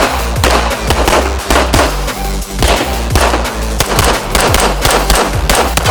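A 9mm M-Arms Kratos 1911-style pistol firing shot after shot, about three shots a second, each a sharp crack with a short echo. Background music with a steady bass runs under the shots.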